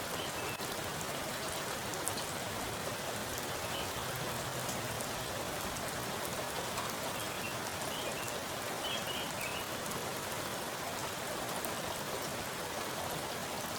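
Heavy rain falling onto a pool of standing water: a steady, dense patter of drops splashing on the surface.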